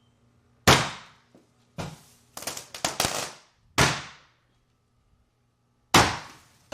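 Fireworks going off inside a room: a series of loud, sharp bangs, about seven, including a quick run of cracks in the middle, each ringing briefly off the room's walls.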